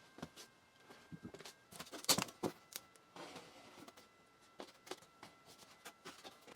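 Faint workbench handling noises: scattered light clicks, taps and scrapes, loudest around two seconds in.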